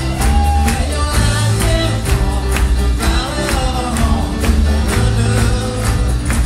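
Live rock band playing a loud instrumental passage with a steady drumbeat and sustained bass notes.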